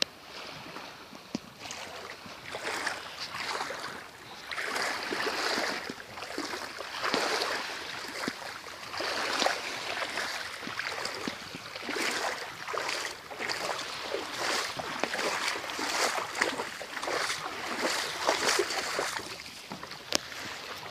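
Sea waves washing onto a rocky shore: a noisy rush that swells and fades every two to three seconds.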